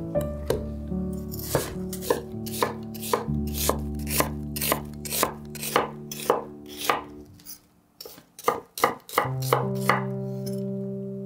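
Chef's knife slicing an onion into thin half-rings on a wooden cutting board: even cuts about three a second, a brief pause, then a few quicker cuts. Soft background music with sustained tones underneath.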